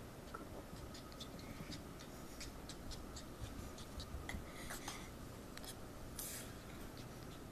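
Soft scratching and rubbing on carpet with scattered small clicks, as a tiny puppy scrambles about and is handled on the rug.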